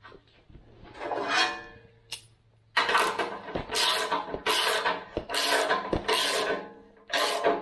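Rasping metal-on-metal scrapes, a run of strokes of about half a second each, from a steel swing-out arm being forced round on its spindle pivot with a handle against a gas strut.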